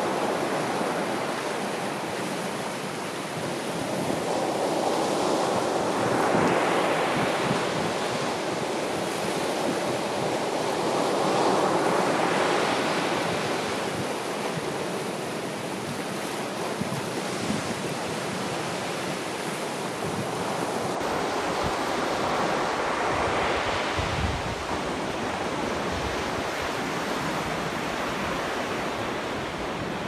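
Sea surf breaking and foaming around rocks, the wash rising and falling in swells every several seconds. About two-thirds of the way through the sound changes and a deep rumble of wind on the microphone comes in.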